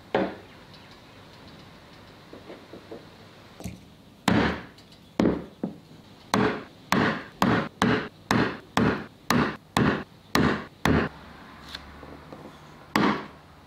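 A brad awl driven through a paper template into the wooden board to mark drill-hole centres. It makes a series of sharp knocks, a few scattered at first, then a steady run of about two a second, with one more near the end.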